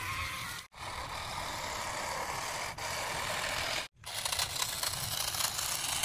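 Toy trucks' small electric motors and plastic gearing running as they drive, heard in three stretches split by two brief cut-outs. The last stretch has a dense crackling rattle.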